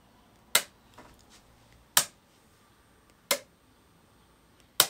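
Solenoid point motors under an N gauge layout throwing a pair of points set to one decoder address: four sharp clicks about a second and a half apart. The points are switching cleanly and together, as they should.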